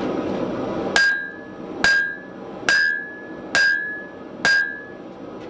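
Five hammer blows on metal on an anvil, a little under a second apart, each with a clear ringing note. A steady rushing noise stops just before the first blow, about a second in.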